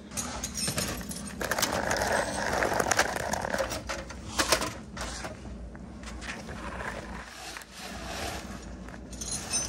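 Scraping and knocking on a concrete garage floor as a steel jack stand is set under a car and someone gets down and crawls underneath, with a denser run of scraping early on and scattered sharp knocks and clicks.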